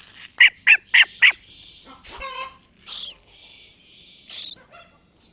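A cockatiel giving four short, sharp calls in quick succession, followed by quieter scattered chirps.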